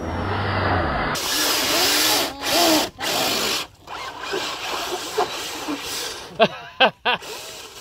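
Electric motor of a radio-controlled 4x4 crawler whining, rising and falling in pitch as it is throttled on and off, with its tyres churning through wet mud.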